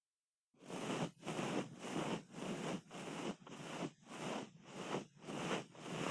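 Ear-cleaning ASMR strokes: an ear-cleaning tool scraping and rubbing inside a microphone's ear in a steady rhythm of about two strokes a second. It begins suddenly about half a second in and stops abruptly at the end.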